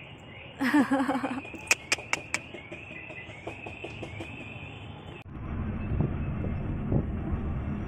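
A repeating high chirping, with a short voice sound about a second in and a few sharp clicks around two seconds; then, after a cut a little past five seconds, the steady low rumble of a Hyundai car driving, heard inside the cabin.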